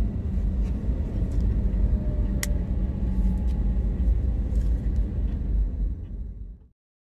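Car cabin road noise: a steady low rumble of a moving car heard from inside, with one sharp click about two and a half seconds in. The sound fades and cuts off near the end.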